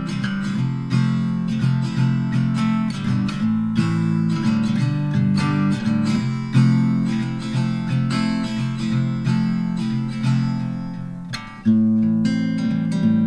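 Background music on acoustic guitar, plucked and strummed, with a short drop about eleven and a half seconds in before a strong strum brings it back.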